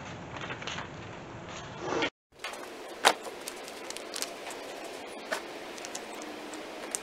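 Handling noise as window tint film is worked against a truck's window glass: low rustling, a short break about two seconds in, then scattered light clicks with one sharp click about a second later.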